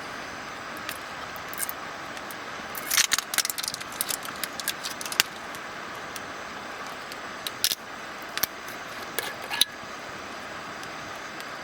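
Small metallic clinks and rattles, a dense cluster about three seconds in and a few scattered ones later, over a steady background hiss.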